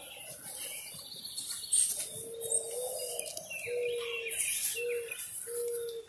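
A dove cooing: a run of about five low, even notes beginning about two seconds in, with smaller birds chirping higher up behind it.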